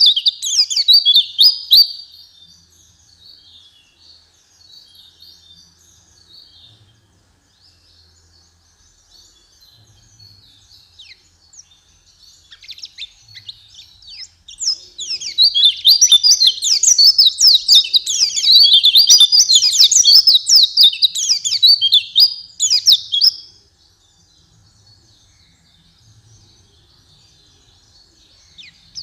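White-eye (pleci) singing: a rapid, high twittering phrase that breaks off about two seconds in, soft scattered chatter, then a long, loud run of fast rolling song from about halfway through until a few seconds before the end.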